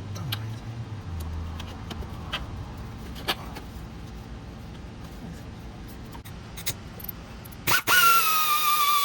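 Scattered metallic clicks and clinks of tools on the truck's AC line fittings, then near the end a loud, steady high-pitched whine that wavers slightly in pitch.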